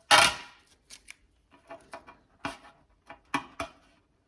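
A loud rasping sound about half a second long, then a series of about seven short, sharp clicks and clinks from small hard objects being handled.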